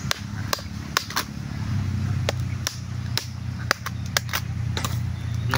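Machete blade chopping into the husk of a large bamboo shoot: about ten sharp, irregularly spaced chops.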